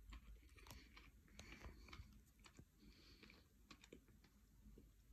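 Faint chewing of a dense, dried clay-paste cookie: a scatter of small crunching clicks as it is ground between the teeth.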